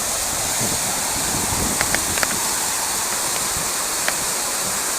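Waterfall: a steady rush of falling water. A few short clicks come about two seconds in and again near the end.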